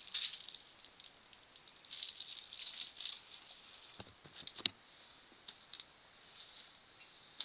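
Scattered light clicks, taps and rustles of a gingerbread door being handled and pressed onto a gingerbread house, with the sharpest click a little past halfway.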